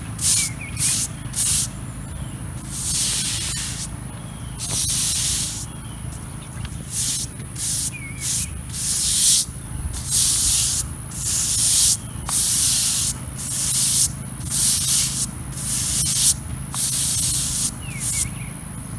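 A hand-triggered spray nozzle spraying liquid onto concrete in repeated hissing bursts. The bursts are short at first and then about a second each, with short pauses between.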